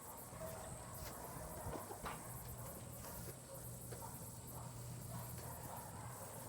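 Faint, distant animal commotion from a pig pen with hunting dogs, heard as short wavering calls over a low steady hum, with a few light clicks about one to two seconds in.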